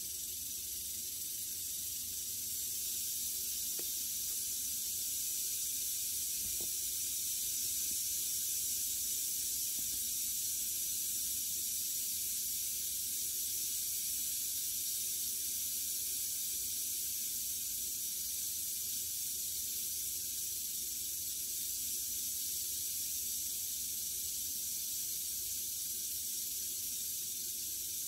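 Western diamondback rattlesnake shaking its tail rattle: a continuous, steady high-pitched buzz that does not let up.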